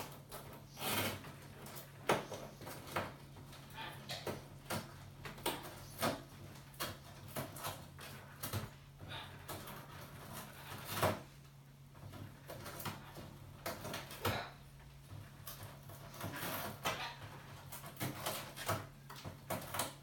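Caged Amazon parrot moving about on its perches, giving a run of short, irregular clicks and taps from beak and feet, with a steady low hum underneath. The two loudest knocks come about 2 s and 11 s in.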